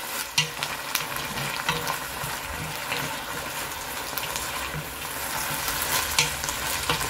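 Chopped onions, tomatoes and peppers sizzling steadily as they fry in oil in an enamelled pot, stirred with a wooden spoon that scrapes and knocks lightly against the pot a few times. The stirring keeps the vegetables from burning.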